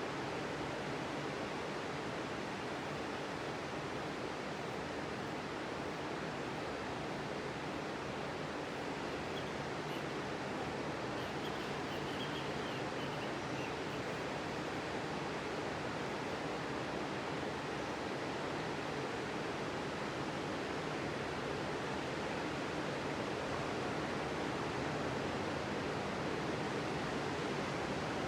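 Sea surf washing steadily onto the beach, a continuous even rush with no separate wave breaks standing out.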